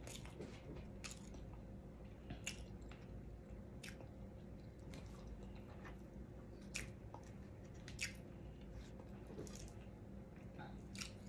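A person chewing fried food close to the microphone: faint, wet mouth clicks and smacks at irregular intervals.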